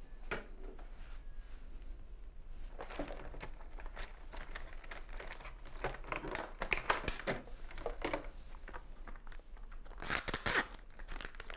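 Crinkling, rustling and tearing of an injection kit's packaging as it is handled and opened, in irregular bursts, the loudest about ten seconds in.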